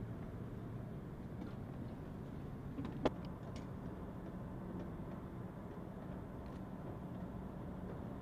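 A steady low machinery hum from the airfield, with a few light clicks and one sharp click about three seconds in.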